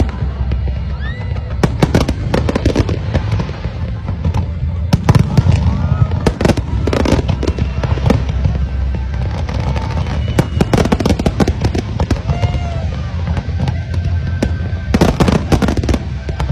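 Aerial fireworks display going off in a dense, continuous run of bangs and crackling bursts over a deep low rumble.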